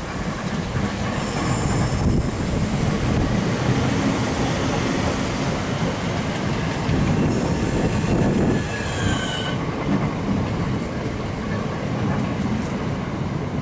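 Class 465 Networker electric multiple unit running into the platform, with a steady rumble of wheels on rail and some rail clicks. High squeals from the wheels sound about a second in and again, gliding in pitch, around nine seconds in.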